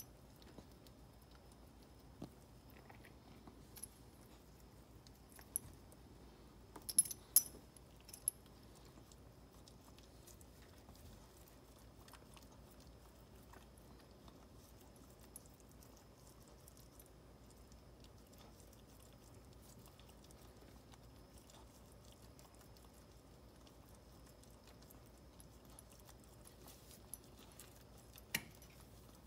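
Quiet, sparse mouth sounds of a Maltese mother licking and nibbling her newborn puppy, with a short cluster of sharp clicks about seven seconds in and another click near the end.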